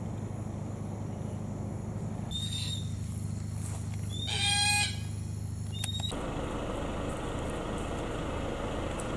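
Red-tailed black cockatoos calling: a short call about two seconds in, then a louder, longer call with several stacked pitches at about four and a half seconds, and a brief one soon after. A steady low hum lies underneath.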